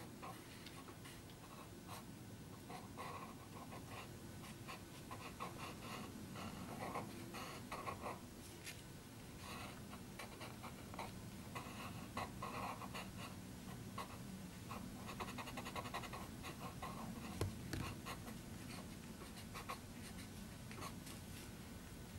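Black paper-wrapped grease pencil scratching across paper in short, irregular strokes while drawing lines, with one sharp knock about seventeen seconds in.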